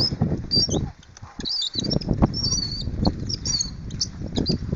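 Small birds chirping over irregular low thumps and rustling.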